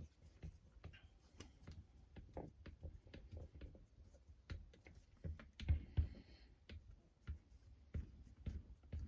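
Scattered light clicks and taps of small parts and tools being handled while an RC crawler chassis's motor cover is screwed back on, with two louder knocks about six seconds in.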